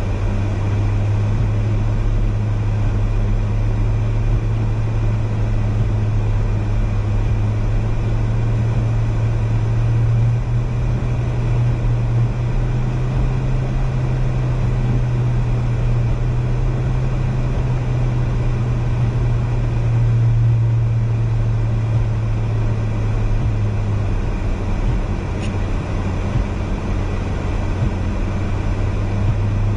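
A car driving on a snow-covered road, heard from inside the cabin: a steady low engine and road hum. Its pitch rises slightly about ten seconds in and drops back a little before the end.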